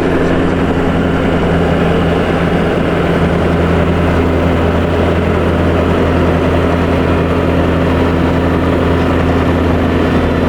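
Skid steer's diesel engine running steadily at a constant speed, a low, even drone.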